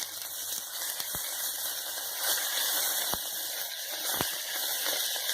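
Ginger garlic paste and browned onions sizzling in hot oil in a pressure cooker, a steady hiss. Three faint knocks sound through it.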